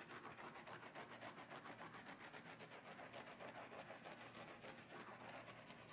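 Faint, steady hiss of a handheld butane torch flame passed over wet acrylic paint to pop the air bubbles in the white base coat.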